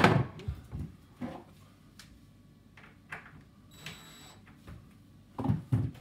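Kitchen unit door on a soft-close hinge being worked by hand: a sharp knock at the start, a few light clicks, then two dull thumps near the end.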